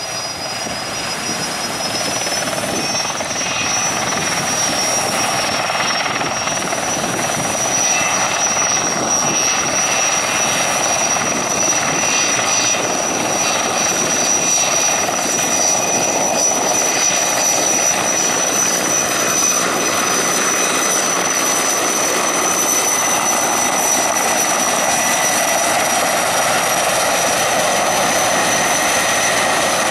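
Sikorsky S-64 Skycrane heavy-lift helicopter hovering low over the sea while drawing water through its snorkel: a dense steady rotor rush with a thin high whine from its twin turboshaft engines. It grows louder over the first few seconds, then holds steady.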